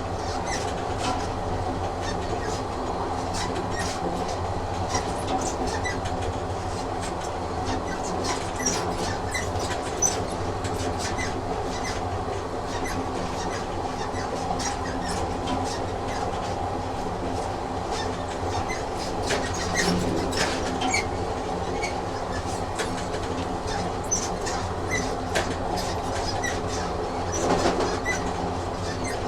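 A train running on rails: a steady hum with frequent, irregular clicks of the wheels passing over the track.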